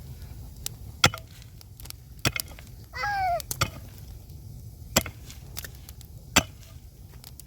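Sharp chopping strikes on wood, four heavy blows at uneven intervals with lighter knocks in between.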